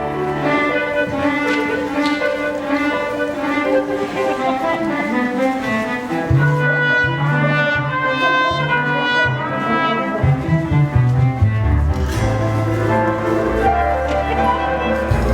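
Musical-theatre pit orchestra playing, with brass and strings carrying the melody over held bass notes.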